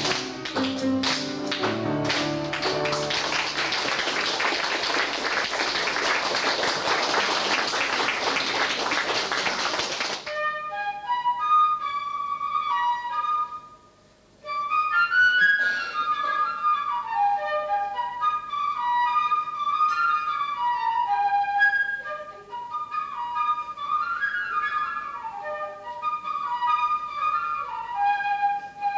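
Audience applause for about the first ten seconds, cut off abruptly. Then a concert flute plays a melody, broken once by a short silence.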